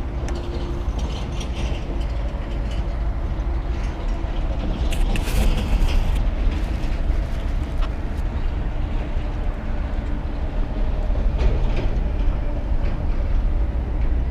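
Steady deep rumble of strong wind buffeting the microphone, over the noise of heavy truck traffic on a nearby highway, with scattered clicks and a brief rustle about five seconds in.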